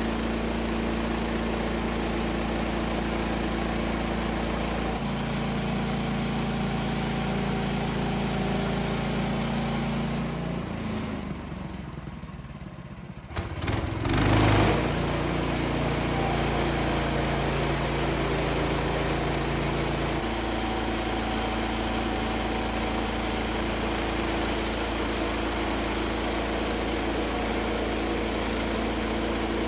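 Small gasoline engine of a portable band sawmill running steadily. About eleven seconds in it falls away for a couple of seconds, then comes back with a short louder surge and runs on steadily.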